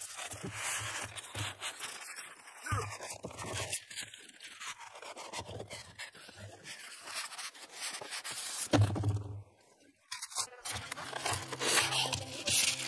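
Styrofoam packing blocks and cardboard scraping, squeaking and rustling as a boxed gas grill is pulled out of its carton, with scattered knocks. About ten seconds in, the handling stops and background music comes in.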